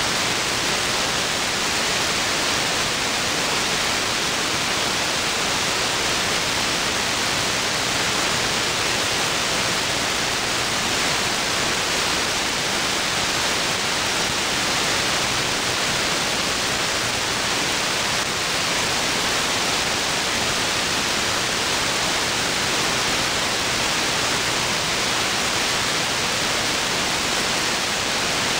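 Steady static hiss from an SDRplay RSP1 receiver in AM mode on the 125.575 MHz aircraft band channel with no transmission: the dead air between air traffic control calls.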